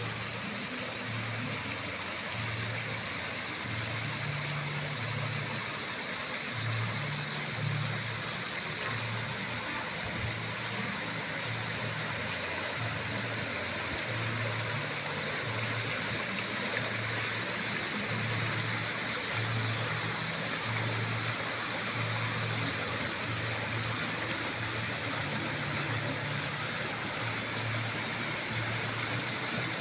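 Ornamental fountain's water cascading steadily from its stone basins into the pool, with a low hum underneath that steps between two pitches.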